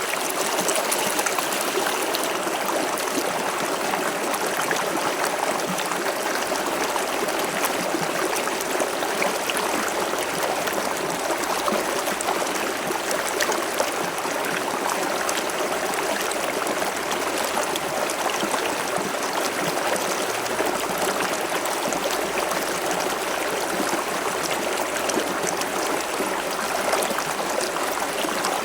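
River water flowing steadily over rocks, a constant rush with fine splashing and trickling.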